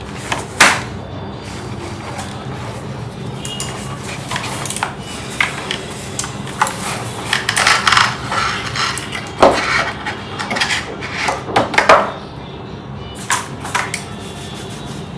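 Packaging of a new mechanical keyboard being opened and handled: rustling and scraping of cardboard and plastic, with scattered sharp knocks and clicks, busiest in the second half.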